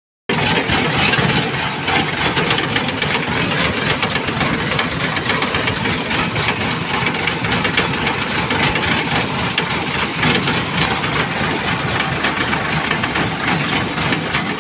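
Diesel engines of a working JCB 3DX backhoe loader and tractors, running steadily.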